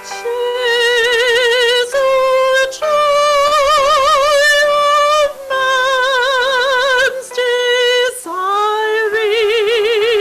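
Solo female voice singing long held notes with a wide vibrato, in four phrases with short breaks between them. The last phrase slides up into its note.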